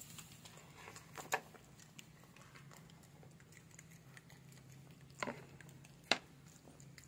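Newborn puppies eating mashed food from a plate on the floor: soft patter and small ticks of eating and stepping, with three sharp clicks, about a second in, past five seconds and again past six. A steady low hum sits underneath.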